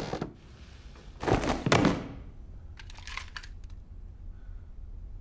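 A loud dull thud-like noise about a second in, followed by a few faint short knocks, over a quiet indoor hush in a film soundtrack.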